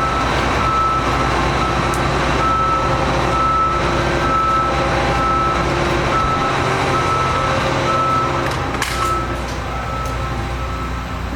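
Heavy vehicle's backup alarm beeping steadily, a little over once a second, over its diesel engine running: the vehicle is reversing.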